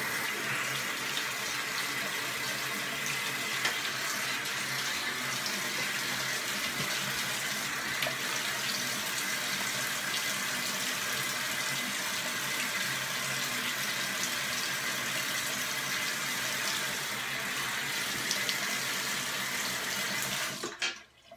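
Bathroom sink tap running steadily into the basin, then shut off near the end.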